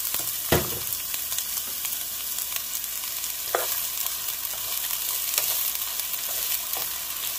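Diced onion sizzling in a little hot oil in a skillet as it is stirred with a slotted spoon, with a couple of sharp knocks of the spoon against the pan, about half a second in and again around three and a half seconds.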